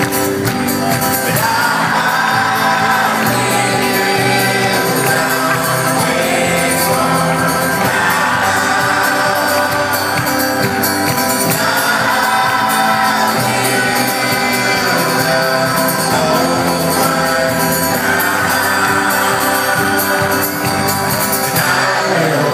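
Live band playing a song with singing, heard from within the concert audience.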